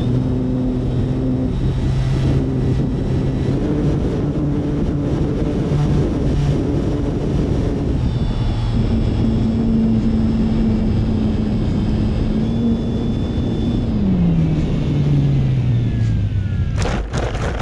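Onboard sound of an F3A Explorer RC aerobatic model in flight: its motor and propeller drone steadily under wind rush over the camera. The pitch falls about 14 seconds in as the throttle is cut for landing, and near the end a few sharp knocks and scrapes come as it touches down on grass.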